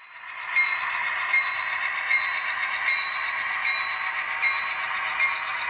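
HO scale model train led by a GP38-2 diesel locomotive running slowly on the track with a steady mechanical hum, mostly mid and high pitched. A short ringing tone repeats about every three-quarters of a second.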